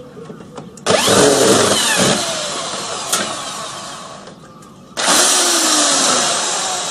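Handheld power tool run in two short bursts. Each starts suddenly, about a second in and again about five seconds in, then dies away over about three seconds with a falling pitch.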